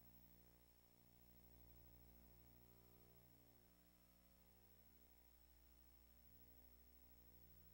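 Near silence: a faint steady electrical hum with hiss.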